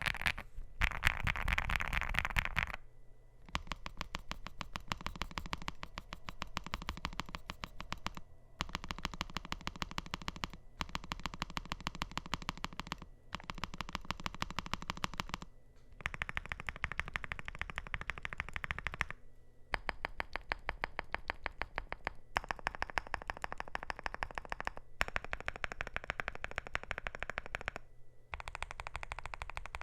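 Fast typing on a NuPhy GEM80 mechanical keyboard with lubed and filmed NuPhy Raspberry linear switches in a POM plate, under PBT keycaps. Keystrokes come in quick runs of a few seconds each, broken by short pauses.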